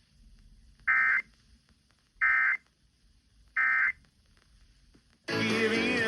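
Emergency Alert System End-of-Message burst: three short, identical buzzing data bursts about a second and a half apart, marking the end of the relayed severe thunderstorm warning. Music starts up loudly near the end.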